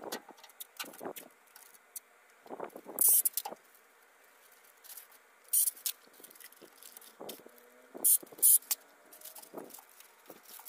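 Brown masking paper and orange masking tape being handled and pressed onto a car body: paper crinkling and rustling with small knocks, and four short, sharp rips, loudest two close together near the end.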